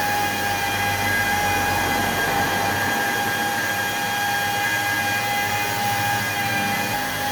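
A motor-driven tool running steadily, a constant high whine over a rushing noise, with a lower hum that rises and falls.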